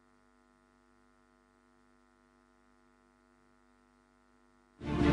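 Near silence with a faint, steady electrical mains hum; about five seconds in, loud music starts abruptly, the opening of a TV news interlude.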